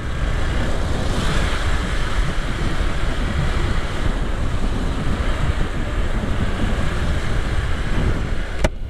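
Wind rushing over the microphone of a moving motorcycle, steady throughout, with the bike's engine and tyre noise low beneath it. A single short click sounds near the end.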